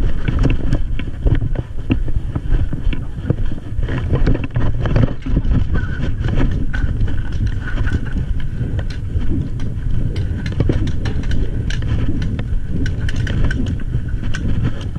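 Heavy rumbling handling noise from a body-worn camera jostled against clothing and gear as the wearer moves, with many irregular knocks and clicks.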